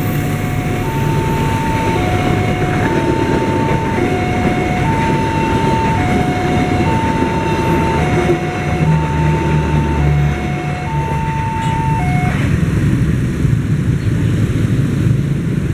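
Indonesian level-crossing warning alarm sounding a slow alternating two-tone chime, about one tone a second, over the rumble of passenger coaches rolling past. The chime stops about twelve seconds in as the barrier lifts: the train has cleared the crossing.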